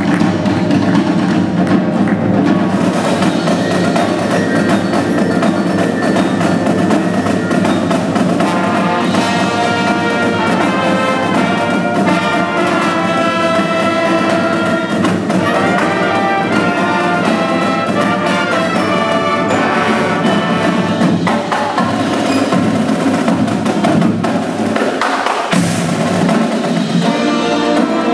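High school marching band playing live: brass chords over marimbas and percussion, with one sharp hit near the end.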